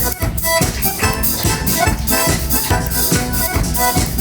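Live band playing an instrumental groove: drum kit keeping a steady beat under bass and keyboard.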